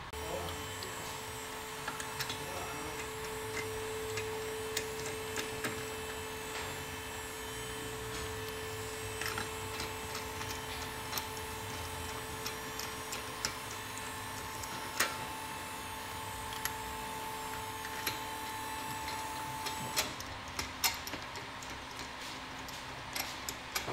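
Scattered light metallic clicks and clinks as wheel bolts are threaded by hand into the hub of a car wheel, more frequent near the end, over a steady workshop hum with a faint held tone.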